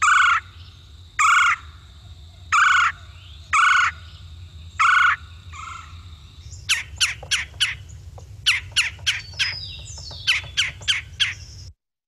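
Recording of a red-bellied woodpecker calling: five loud calls about a second apart, then a run of quick, sharp notes in short groups, over a low hum. The recording cuts off suddenly near the end.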